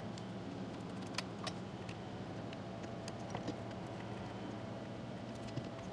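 A few light clicks and taps of small parts being handled as a carburetor and its fuel lines are fitted onto a chainsaw, over a steady low hum.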